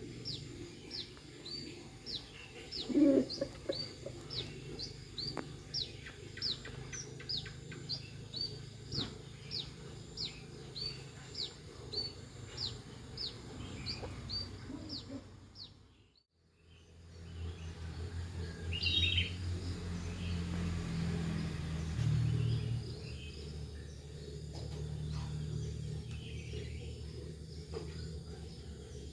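Wild birds chirping. For the first half, one bird repeats a short, high, falling note about twice a second. After a brief break just past the middle, a low steady rumble runs under a few scattered chirps.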